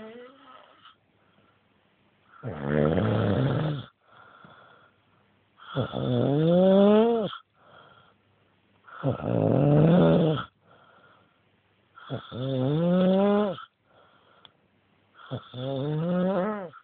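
A man snoring loudly in deep sleep: five long snores about three seconds apart, each rising in pitch as it goes, with quieter breaths between them.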